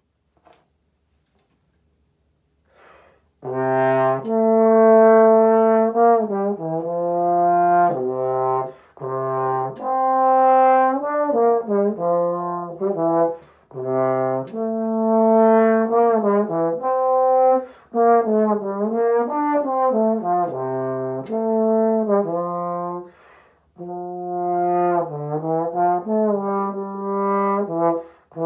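Slide trombone playing a slow, lyrical solo etude: long held notes in connected phrases, separated by short pauses for breath. It comes in about three and a half seconds in.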